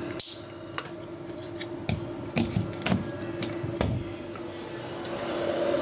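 PC speakers putting out a steady electrical buzz with irregular clicks and crackles over it, and a hiss that swells near the end: interference noise from the computer's hardware, which the owner puts down to the motherboard or poor filtering in the power supply.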